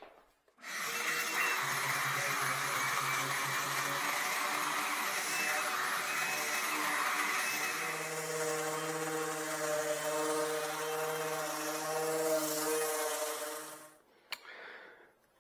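Random orbit sander with a dust-extraction hose running on maple end grain: a steady whir with a low hum that shifts higher about halfway through. It cuts off shortly before the end.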